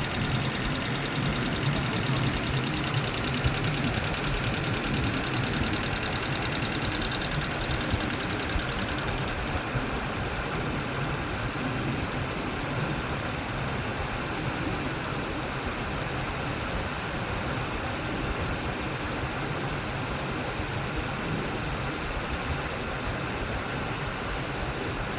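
Rebuilt Nissan CA18DET turbocharged 1.8-litre inline-four running steadily at idle, settling slightly quieter about nine seconds in.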